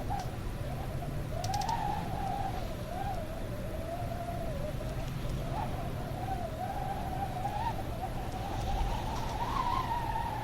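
Wind howling: a continuous whistling tone that wavers up and down in pitch, over a low rumble.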